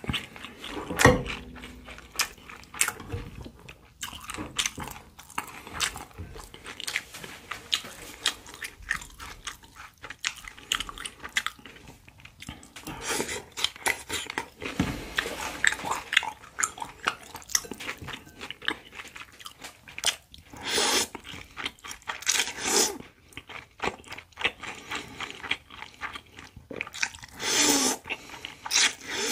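Close-up chewing and crunching of spicy whelk and cucumber noodle salad, with many short wet mouth clicks. In the second half come a few longer slurps of the noodles, each about a second long.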